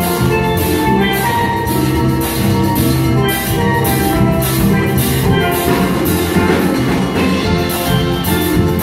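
Steel drum band playing a tune: several steel pans ringing out melody and chords over a drum kit keeping a steady beat.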